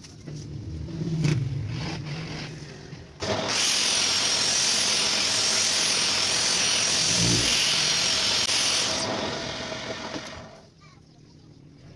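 Homemade wood lathe running with a wooden bowl blank on the spindle. About three seconds in, a tool is pressed against the spinning bowl, giving a loud hiss with a wavering high whine for about six seconds, then it lifts off and the noise dies away.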